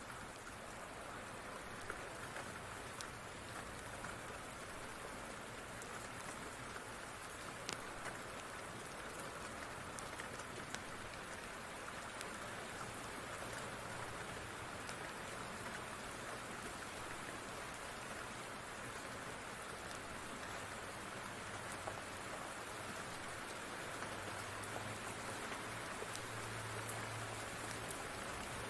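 Steady rain falling, with occasional faint sharp clicks scattered through it and a low rumble coming in near the end.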